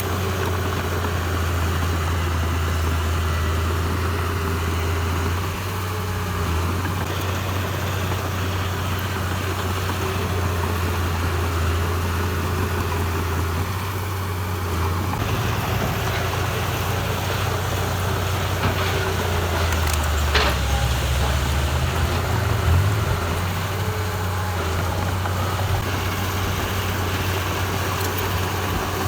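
Heavy diesel engine of earthmoving machinery running steadily. About twenty seconds in, its note dips briefly and there is a sharp click.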